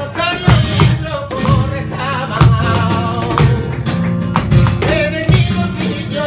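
Live flamenco music: a male singer's wavering, ornamented voice over guitar, with sharp percussive strikes from the dancers' footwork cutting through.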